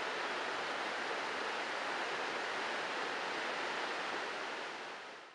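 A broad, fast-flowing river rushing steadily, a dense even wash of water noise that fades out near the end.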